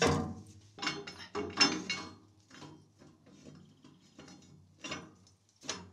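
Narrowboat weed hatch cover being seated and its retaining clamp screwed down by hand: metal knocks and clatter as the steel cover goes in, then a run of clicks from the turning clamp handle, with two sharper clicks near the end.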